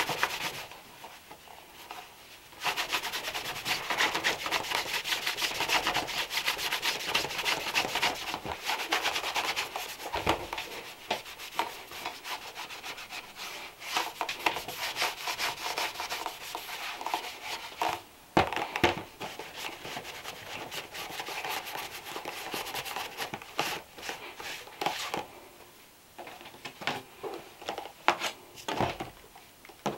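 Stiff shoe brush scrubbing over a leather shoe in rapid back-and-forth strokes, with a few short breaks and some knocks from handling near the end.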